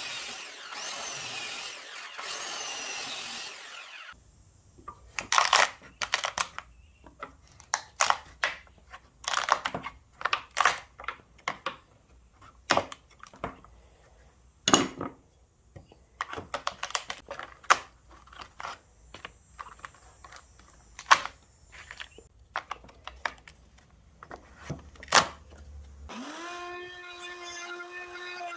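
Wood of a 4x4 post snapping and cracking with sharp, irregular crunches as the thin waste between saw kerfs breaks out while a dado joint is cut. It follows a few seconds of steady whirring noise. Music comes in near the end.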